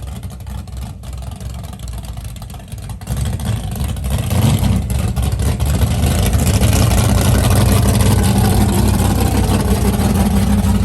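Big-block Lincoln V8 engine running at a low, rumbling speed, then the throttle opens about three seconds in and it climbs to a loud, sustained high-rpm run that holds to the end.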